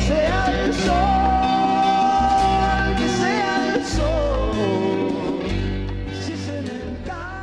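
The programme's closing song, with singing over a band of bass and drums, fading out over the last couple of seconds.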